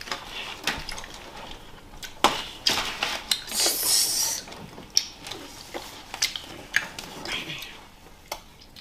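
Handling noises of gummy candy and its plastic wrappers: scattered clicks and rustles, with a denser crinkling hiss for about a second near the middle.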